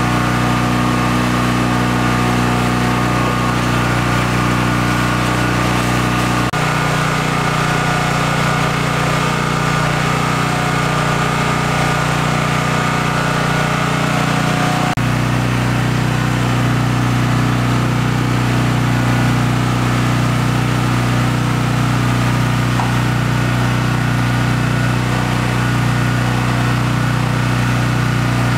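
A small engine running steadily at constant speed, its tone shifting abruptly twice, about six and a half and fifteen seconds in.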